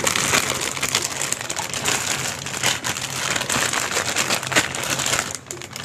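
Clear plastic bag crinkling and rustling as it is handled, a dense run of fine crackles that eases briefly near the end.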